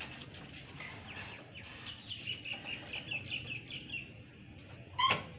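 Birds calling: a run of quick, high chirps, then one loud call that falls in pitch near the end.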